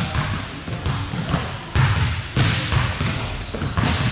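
Basketball bouncing and being handled on a hardwood gym floor, several dull knocks, with sneakers squeaking briefly on the court about a second in and again near the end.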